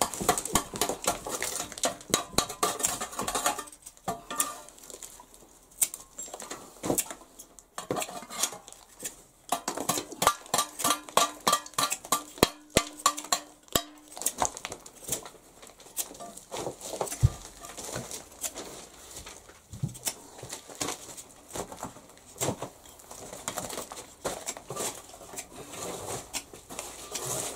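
Sharp taps and knocks of a hand blade chopping and whittling a small piece of wood into a wedge, coming irregularly and at times several a second.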